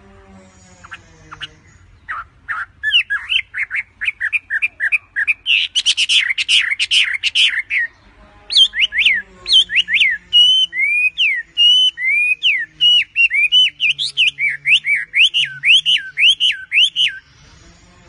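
Chinese hwamei singing a fast, loud run of whistled notes that swoop up and down. It starts about two seconds in, breaks off briefly near the middle, and stops about a second before the end.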